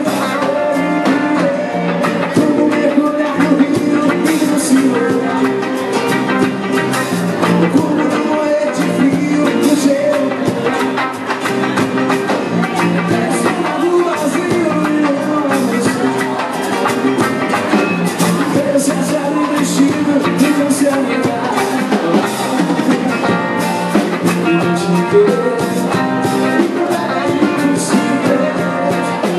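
Rock band playing a cover song: electric guitar and a drum kit keeping a steady beat, with some singing.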